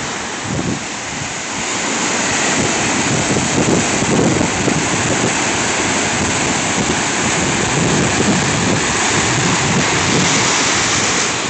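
Heavy ocean surf breaking over rocks and churning into white water, a loud, steady rush of noise, with wind buffeting the microphone.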